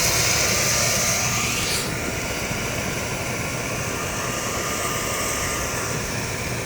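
Oil furnace converted to burn waste oil, its burner firing with a steady rushing noise, a little quieter from about two seconds in.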